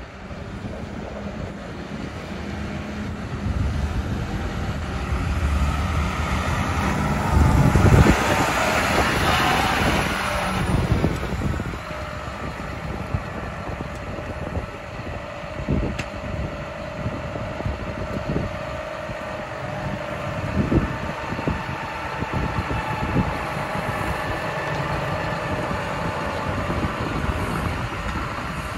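John Deere 6190R tractor's six-cylinder diesel engine running. It swells louder for a few seconds about a quarter of the way in, then settles into a steady drone.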